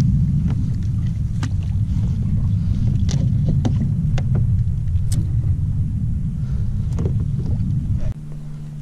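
Wind buffeting the action-camera microphone as a loud low rumble, with a few light clicks and knocks from handling at the kayak's side. The rumble cuts off abruptly about eight seconds in, leaving a faint steady hum.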